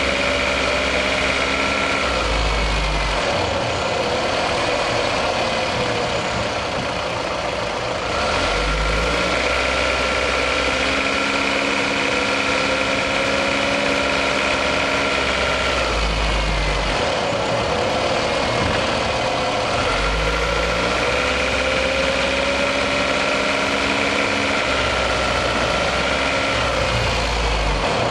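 Toyota 1AZ-FE 2.0-litre four-cylinder engine running under load while driving, picked up in the engine bay; its note rises and changes in cycles about every eight seconds. The owner reports a knock from this warm engine when it pulls under load.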